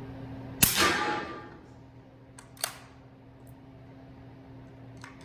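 A single suppressed shot from an 8-inch bolt-action 300 Blackout rifle firing 220-grain subsonic ammunition: a sharp report with a short echoing tail, about half a second in. A couple of small metallic clicks follow about two seconds later.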